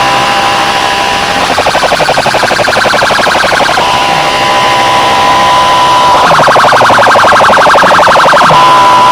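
Siren-like alarm tones blaring from large DJ sound-box speakers. A steady two-note tone alternates with a rapid pulsing warble, switching about every two to three seconds.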